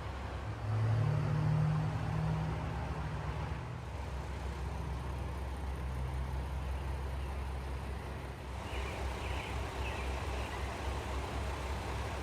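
A vehicle engine running with a steady low rumble that swells louder about a second in, then settles.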